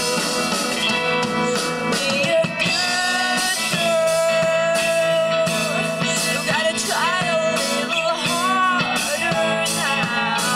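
Rock band playing live with a singer: drum kit and electric guitar under sung lines, with one long held note about midway.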